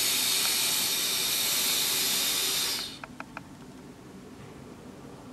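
A big draw on a Smok Vape Pen 22: a steady hiss of air pulled through the pen that stops abruptly about three seconds in, followed by a few faint clicks.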